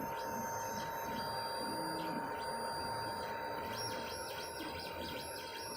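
3D printer at work: its stepper motors give short high whines that step up and down in pitch, coming quicker and more regularly, about three a second, in the second half, over a steady fan hum with a constant high tone.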